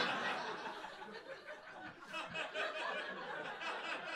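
Audience laughing, loudest at the start and slowly dying down.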